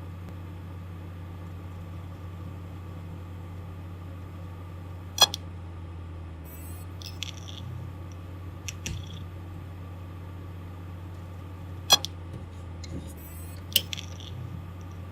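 Damaged hard disk drive running with a steady low hum, broken by sharp irregular clicks, loud ones about five, twelve and fourteen seconds in with fainter ticks between: malfunction noise of a failing drive.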